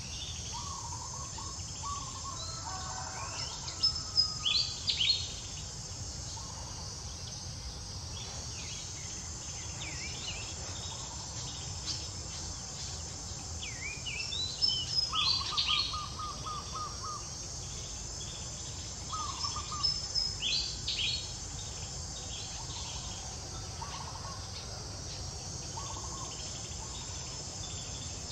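Outdoor ambience: short high bird chirps and trills in clusters every several seconds, over a steady high insect drone and a low background rumble.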